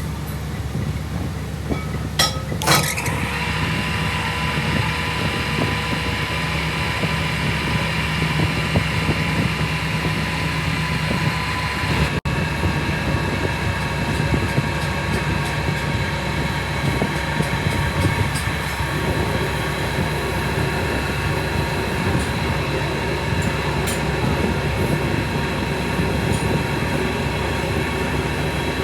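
A workshop machine running steadily, a low rumble with a few steady whining tones on top. Two sharp clicks come about two seconds in, and the sound briefly drops out about twelve seconds in.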